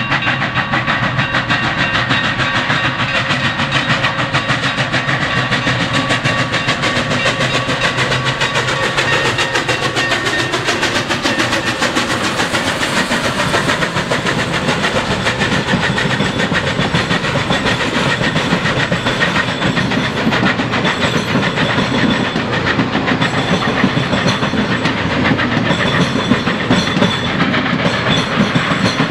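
Union Pacific 3985, a 4-6-6-4 Challenger articulated steam locomotive, working hard as it accelerates, with fast, closely spaced exhaust beats. It comes close about halfway through. Near the end its passenger cars roll by on the rails.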